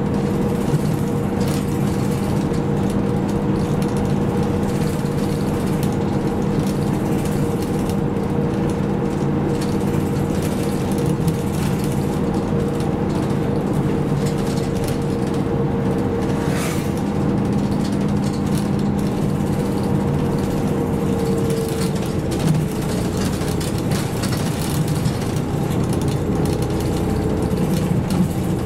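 Nishitetsu city bus running at speed: engine and drivetrain with a steady whine over road noise. The whine shifts lower and weakens about 22 seconds in.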